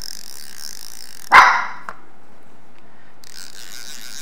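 A dog barks once, short and loud, about a second and a half in. Near the end a reel's mechanism whirs briefly for about a second and a half.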